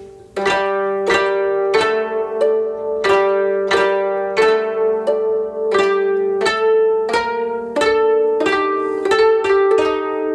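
Ensemble of four kotos, Japanese thirteen-string zithers, playing a slow melody of plucked notes that ring and die away. A strong plucked entry comes about half a second in, after a soft moment, and a quicker run of notes comes near the end.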